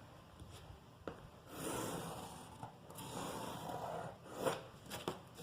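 A marking tool scratching out a long straight line along a ruler, joining the armhole point to the waistline on a bodice pattern. A click comes about a second in, then about three seconds of scratching, and a few light taps near the end.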